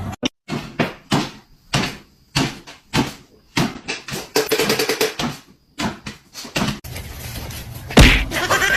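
A series of irregular knocks and thumps, about a dozen, with a loud bang near the end.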